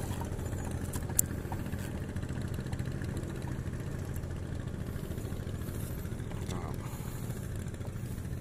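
A small engine running steadily at idle, a low even drone, with a single sharp click about a second in.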